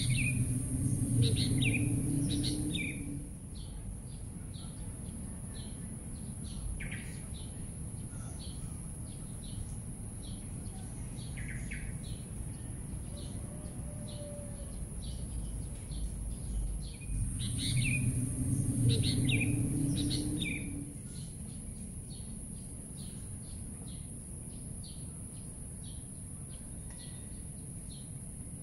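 Birds chirping in many short, repeated chirps over a steady high-pitched hiss, with a low rumble swelling up twice, near the start and about two-thirds through.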